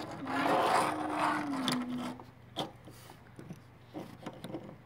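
LEGO plastic pieces being handled, scraping and clicking, with several light separate clicks in the second half. Over the first two seconds a steady hum-like tone sounds and dips slightly in pitch before stopping.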